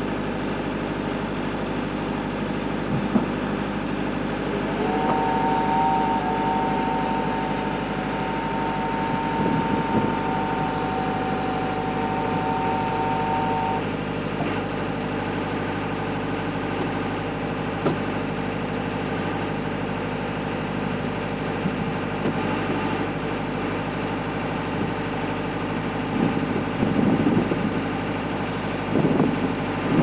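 Diesel generator and electric Wood-Mizer LT70 sawmill running steadily between cuts, with no log being sawn. A steady high two-note whine joins in about five seconds in and stops about nine seconds later.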